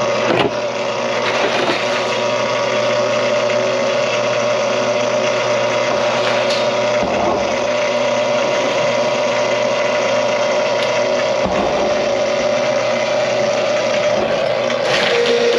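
Electric drain-cleaning machine (power snake) running steadily with a constant motor hum and a few brief knocks, its cable working through a kitchen drain stack clogged with grease.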